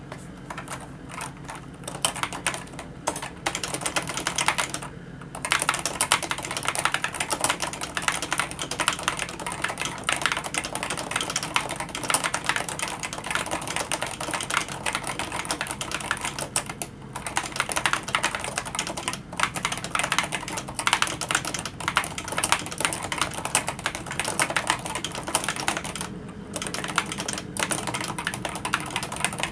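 Continuous typing on a Topre Realforce 104UG high-profile keyboard, its Topre electro-capacitive switches giving a dense, fast run of key strokes. The typing breaks off briefly three times, with a faint low hum underneath.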